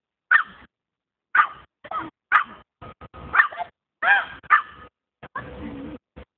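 An agility dog barking repeatedly while running the course: short, sharp barks at irregular intervals, sometimes two in quick succession.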